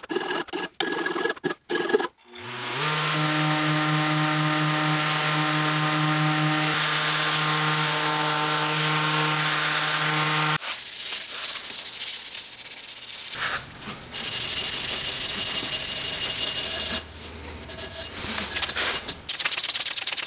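Quick hand scraping strokes of a steel blade along a wooden saw handle. About two seconds in, a random orbital sander with a soft pad starts up and runs steadily against the handle. It stops about halfway through, and the handle is then rubbed by hand on sandpaper in uneven strokes with short pauses.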